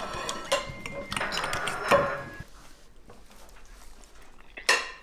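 Metal fork and knife clinking and scraping against a ceramic plate while pasta is gathered onto the fork. A run of small clinks with brief ringing in the first couple of seconds, quieter after, then one sharp knock near the end.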